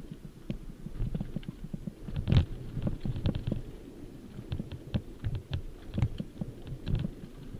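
Mountain bike descending rough dirt singletrack at speed: a continuous low tyre rumble with frequent irregular knocks and clicks as the bike rattles over bumps, the loudest thump about two and a half seconds in.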